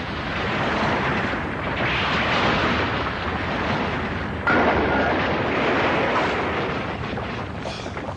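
Animated sound effects of explosions and rumbling: a continuous roar of blasts as an underground facility self-destructs and collapses, with a sudden louder blast about four and a half seconds in.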